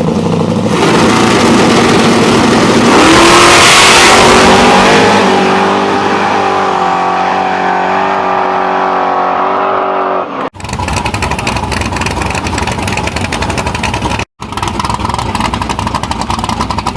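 Drag race car engine at full throttle making a pass, loudest about three to five seconds in, then dropping in pitch and fading. After a cut about ten seconds in, an engine runs close by with a rapid, even firing rhythm.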